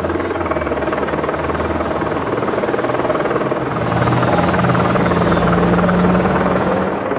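A motor running with a steady drone, growing louder about four seconds in and easing off near the end.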